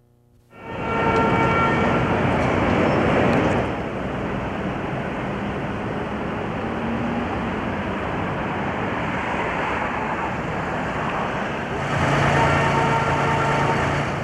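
City street traffic noise: a dense, steady wash of passing vehicles that cuts in suddenly about half a second in. It is louder for the first few seconds and again near the end.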